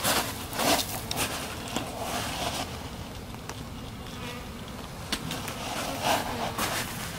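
Honeybees buzzing in and around a package of bees, a steady hum of many bees. A few short crunches of footsteps on gravel are heard over it.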